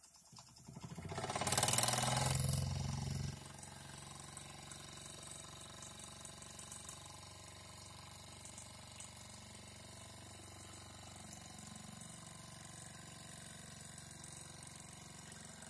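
Mamod live-steam traction engine getting under way. A loud rush of steam builds and cuts off suddenly about three seconds in, then the small single-cylinder engine runs steadily with a soft steam hiss and fine, rapid exhaust beats.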